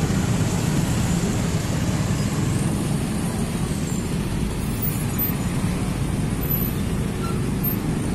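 Dense traffic of motor scooters and small motorcycles pulling away together, a steady mix of many small engines running.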